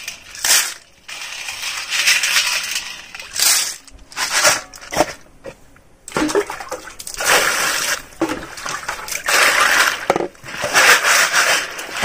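Small freshwater snails being washed by hand in a steel basin of water: their shells rattle and scrape together, and the water splashes and sloshes, in uneven bursts.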